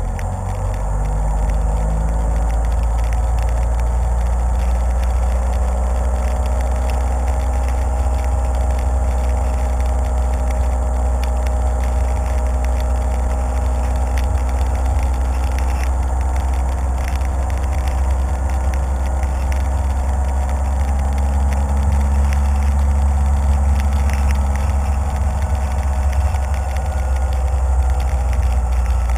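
Car driving, heard through a GoPro mounted on its hood: a loud, steady low rumble of wind and road noise on the camera's microphone, with engine and tyre hum that rises and falls slowly in pitch as the speed changes.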